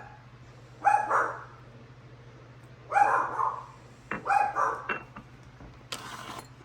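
A dog barking: three short barks spaced a second or two apart, over a faint steady low hum.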